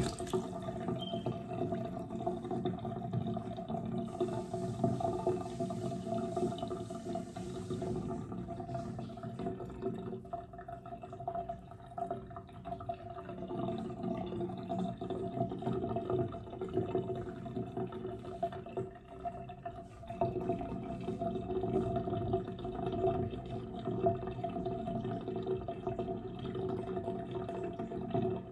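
Water splashing and dripping in a bathroom sink as a wet kitten is handled and rubbed in the basin, with a faint steady hum underneath.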